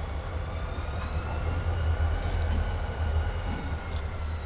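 CSX diesel locomotives rolling slowly past, their engines running with a deep steady rumble. A faint high whine slowly rises and falls over it, with a few sharp clicks.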